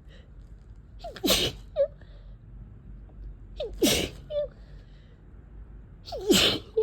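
A person with a head cold sneezing three times, about two and a half seconds apart, each sneeze starting with a short falling "ah" before the burst.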